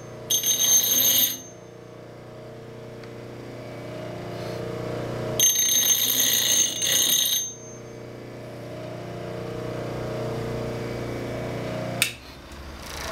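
Bench grinder with a white aluminum oxide wheel running with a steady hum while an adze's steel bevel is touched to it twice, giving a high whine for about a second near the start and about two seconds midway: light grinding to take down a high spot on the edge. Near the end a sharp click, and the motor hum drops away.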